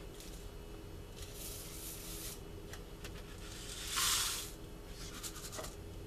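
Dry oats poured from a plastic measuring cup into a saucepan: a soft rustling hiss in a few short pours, the loudest about four seconds in, with a few light clicks near the end, over a faint steady hum.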